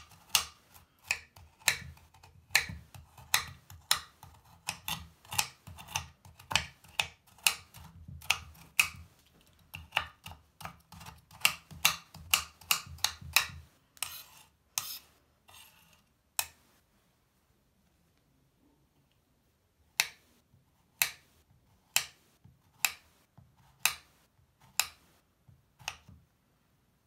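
Kitchen knife chopping a crumbly bubble bar on a marble-and-wood cutting board: quick repeated knocks of the blade through the bar onto the board, two or three a second for about the first half. After a pause of a few seconds, slower single cuts come about once a second near the end.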